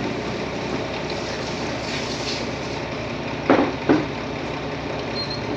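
Diesel construction machinery running steadily, with an excavator at work. Two sharp knocks come about half a second apart a little past halfway.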